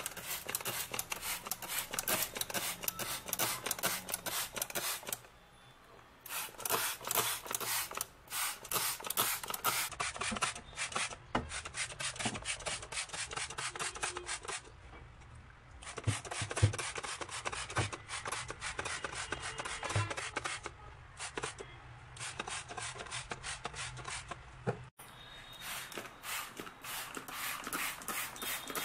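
Trigger spray bottle spritzing in quick repeated squirts, about three a second, with short pauses between runs.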